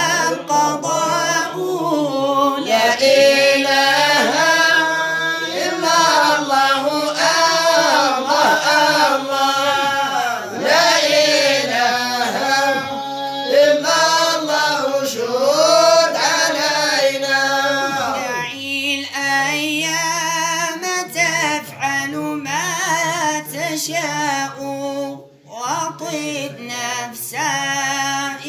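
Singing of an Arabic madih nabawi, a devotional praise of the Prophet Muhammad: a melismatic vocal line whose pitch slides and wavers, with a short break about three seconds before the end.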